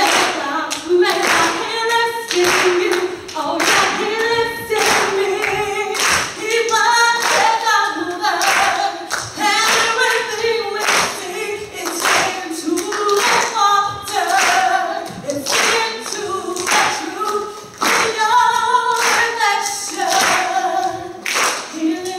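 A woman's voice leading group singing of a gospel song in church, with steady hand clapping on the beat, a little more than one clap a second.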